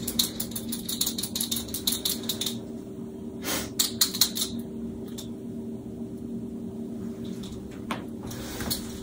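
Oil-based paint marker being shaken, its mixing ball rattling in quick clicks for the first couple of seconds, followed by a few scattered clicks. A steady low hum runs underneath.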